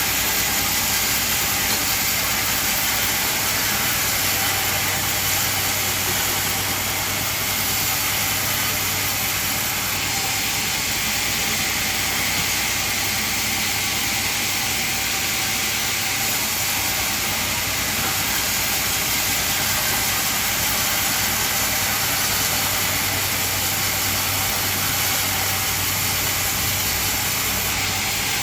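Band sawmill running: a steady, even hiss of the blade over a constant low motor hum, unchanging throughout.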